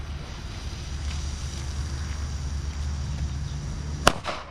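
A single banger firecracker exploding on the ground with one sharp bang about four seconds in, after a steady hiss.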